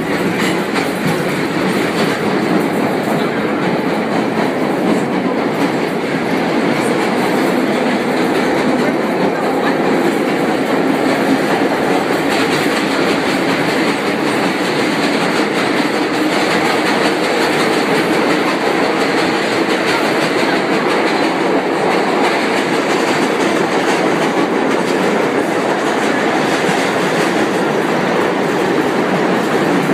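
Steady ride noise inside a vintage R1–R9 series 'Arnine' New York City subway car under way: wheels running on the rails with a clickety-clack from the rail joints.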